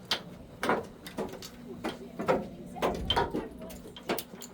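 Irregular knocks and clattering of gear and bodies on a fishing boat's deck, about ten sharp hits, over a low steady hum.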